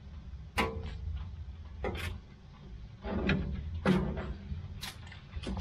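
A thin metal wire rod clicking and scraping against the steel floor and drain of a Lang 84 Deluxe smoker's cook chamber as it is poked into the clogged drain. There are half a dozen separate knocks and scrapes, one ringing briefly, over a low steady rumble.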